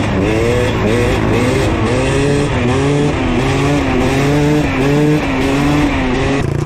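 Dirt bike engine revving up and down in quick, repeated throttle blips, its pitch rising and falling about once a second.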